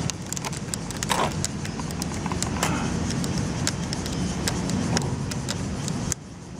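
Plastic clicks and rattles of a small FPV video monitor being handled and adjusted on its mount atop a radio-control transmitter, over a steady low rumble that drops away suddenly near the end.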